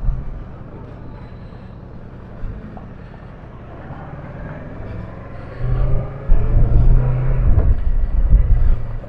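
Kawasaki Versys 650 parallel-twin motorcycle engine running low at first, then getting much louder about six seconds in as the bike pulls away, with wind buffeting the helmet microphone.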